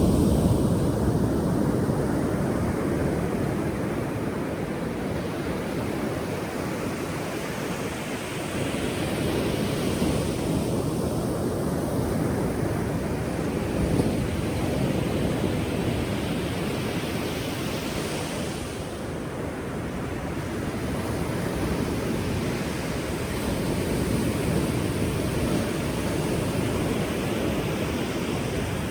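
Ocean surf: waves breaking and washing in a continuous rush that swells and ebbs every several seconds, with some wind on the microphone.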